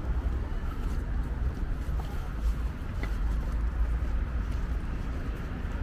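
Wind rumbling on the microphone: a steady low rumble with no distinct events.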